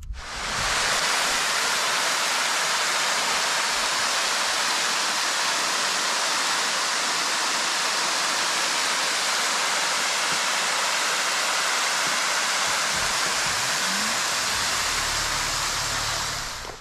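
Thin waterfall spilling over a sandstone cliff ledge: a steady, loud rushing splash that starts and stops abruptly.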